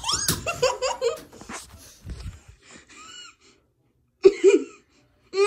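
A child's high-pitched voice making short excited squeals and gasping, laughing sounds in bursts, without clear words, with pitch gliding up and down; the loudest burst comes a little past the middle.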